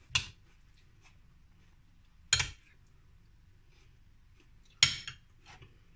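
A spoon knocking against a plate three times, about two and a half seconds apart, as mushroom salad is scooped onto a slice of bread, with a few faint ticks after the last knock.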